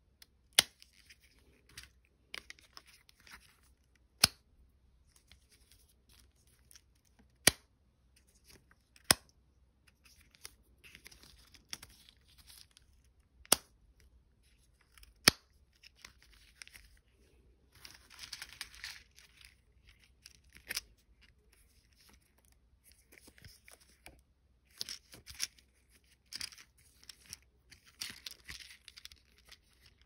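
Close-up handling of plastic monkey-shaped lollipop toys with rubber balloon tongues: about ten sharp plastic clicks and taps scattered through, between stretches of rustling and crinkling, the longest a little past the middle.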